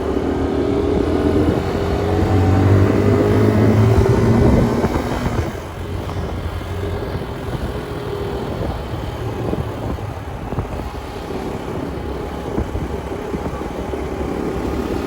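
RKS motorcycle engine running with a steady tone, easing off about five seconds in to a rougher, noisier rumble.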